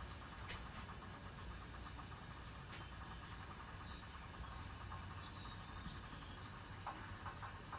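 Faint insect chirping in rapid pulses, stronger near the end, with a few soft clicks.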